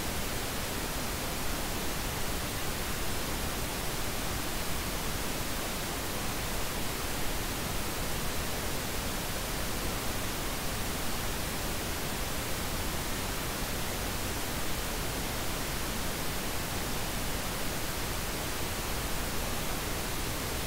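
Steady, unchanging hiss of synthetic noise, spread evenly from low to high pitch: the noise bed of a subliminal audio track.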